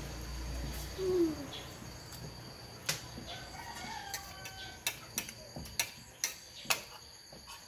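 A rooster crowing in the background, with sharp clicks of a metal spoon against a plate repeating through the second half. A short low falling sound about a second in is the loudest moment.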